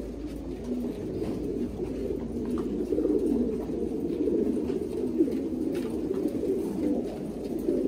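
A loft full of Thai Titan pigeons cooing, many birds overlapping in a continuous low chorus.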